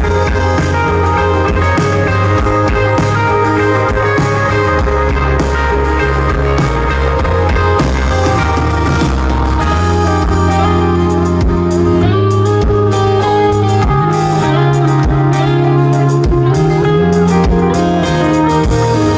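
Live rock band playing an instrumental passage led by electric guitar, over bass and drums, with no singing.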